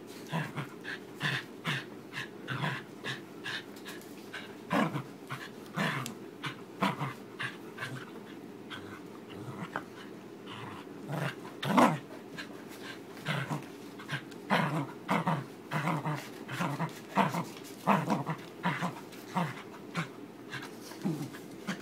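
Pembroke Welsh Corgi play-growling in short repeated bursts while tugging on a rope bone, with a quieter spell partway through.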